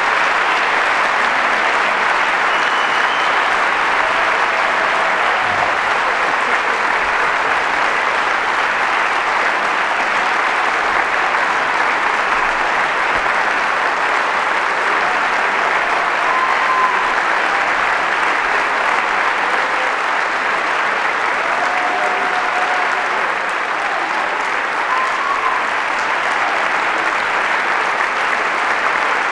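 Large concert-hall audience applauding steadily, with a few short calls rising briefly above the clapping.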